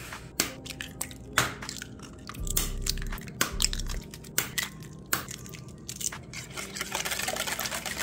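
Kitchen prep at a mixing bowl: irregular sharp knocks and crunchy scraping against the bowl, growing into a denser crackle near the end.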